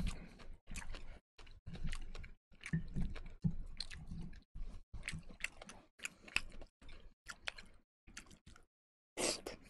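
Close-miked chewing and mouth sounds of a person eating with chopsticks, in a run of short bursts with brief gaps of silence between them.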